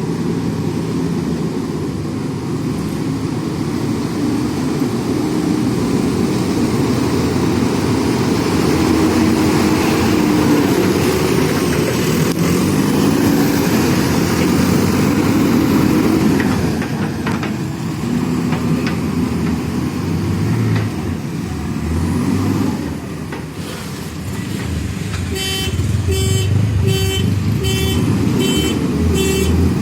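JCB backhoe loader's diesel engine running and revving up and down as the machine works. Near the end, a repeating electronic beeping starts, about two beeps a second, over the engine.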